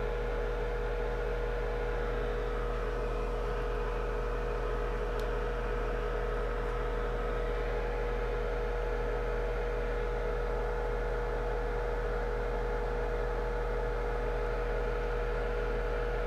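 Steady electrical hum with a constant mid-pitched tone and a light hiss, unchanging throughout; a faint tick about five seconds in.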